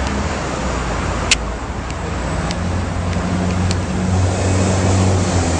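Steady road traffic noise with a low engine rumble. There is one sharp click about a second in, and a few faint ticks after it.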